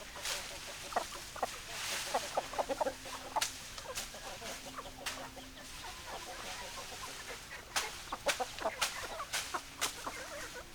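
Hens clucking in short, scattered notes, with a few longer low held notes and sharp clicks mixed in.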